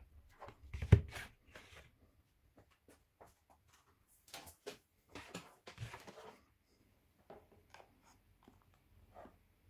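Hands handling objects on a workbench: a sharp knock about a second in, then scattered rustling, scraping and clicks as a white power adapter and its cable are picked up and moved.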